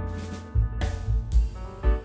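Instrumental background music with pitched notes over a drum kit and a steady low beat.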